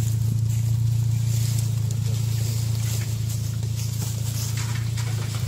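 Opel Frontera 4x4's engine running steadily, a low even hum.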